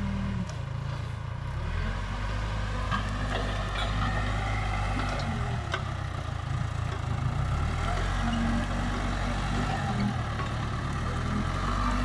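Case 580 Super K backhoe loader's diesel engine running steadily under working load, its pitch stepping up and down several times with the throttle, with a few faint sharp clicks.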